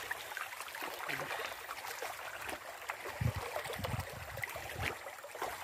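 Hands working in shallow stream water: sloshing and splashing, with small sharp knocks and cracks as golden apple snails are crushed for fish-trap bait. A few heavier, duller splashes come about three to five seconds in.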